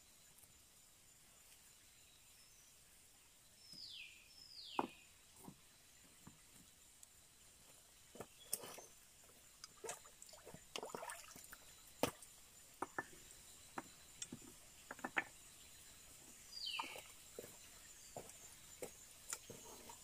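Stones knocking and scraping as rocks are lifted from a shallow stream and stacked, heard as scattered sharp clacks with small splashes of water. A bird gives short descending whistled calls, twice about four seconds in and once near the end.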